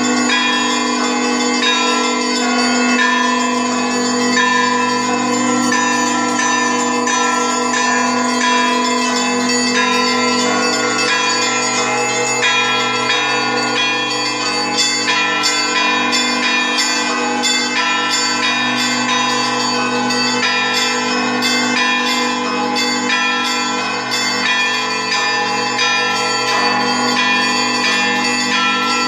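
Russian church bells ringing together: the lingering low tones of the large bells sound under quick, repeated strikes of smaller bells. The strikes of the small bells grow denser and more distinct about halfway through.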